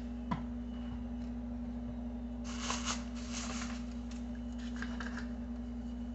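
Spice shaker being handled and shaken: a short rattly burst about two and a half seconds in, with a small click near the start and lighter rustles near the end.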